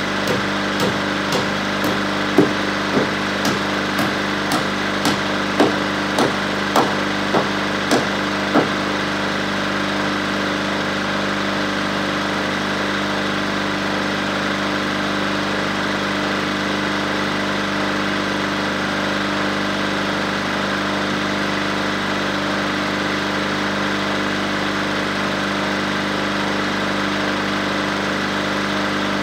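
Hammer blows on wood, about fifteen even strikes at roughly two a second, stopping about nine seconds in. Under them the engine of a small boom-fitted bulldozer idles steadily throughout.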